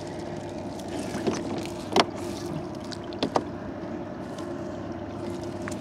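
Small boat's engine running steadily, with a couple of sharp knocks, one about two seconds in and another a little after three seconds.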